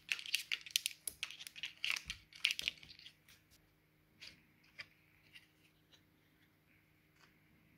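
Foil-lined cardboard from a Pringles can crackling and tearing as tuner holes are pushed through it: a dense run of crinkly clicks for about three seconds. After that come only occasional faint crinkles as the piece is handled.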